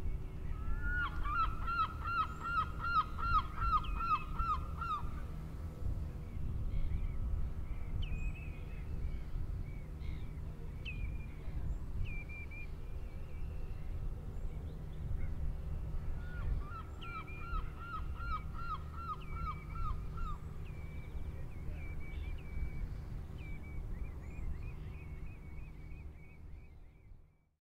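Geese honking in two quick runs of about ten calls each, one near the start and one about two-thirds through, with scattered higher bird calls between, over a steady low rumble. The sound fades out just before the end.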